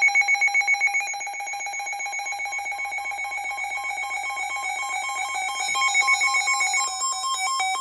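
Weather alert radio sounding its electronic alarm for an incoming warning: a loud, rapidly pulsing high-pitched warble of about six or seven beats a second. Its tone pattern changes near the end.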